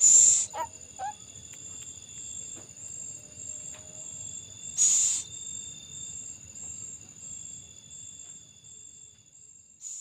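Night insects, crickets, trilling steadily in a high pitch with a slow pulse, over two loud short hissing bursts at the start and about five seconds in. Two brief rising squeaks come about half a second and a second in.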